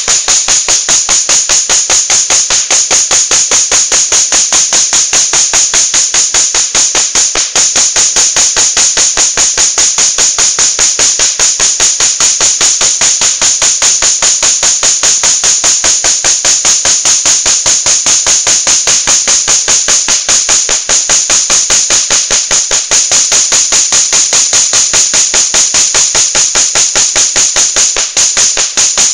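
A laser tattoo-removal handpiece firing: a fast, even train of sharp snaps, about seven or eight a second, each pulse cracking as it strikes the skin.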